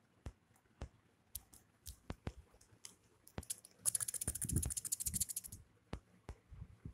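Faint scuffling of kittens playing on a duvet: scattered soft taps and thumps, then a run of quick scratchy clicks on the fabric with soft thumps from about four to five and a half seconds in.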